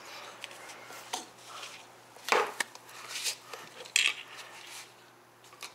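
Thin metal tyre levers clinking and scraping against an electric scooter wheel rim as a stiff tyre bead is pried over it. There is a handful of sharp metal clicks, the loudest a little over two seconds in.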